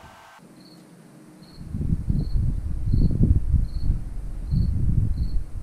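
A cricket chirping steadily, about one short chirp every three-quarters of a second. From about a second and a half in, louder low gusts of wind rumble on the microphone.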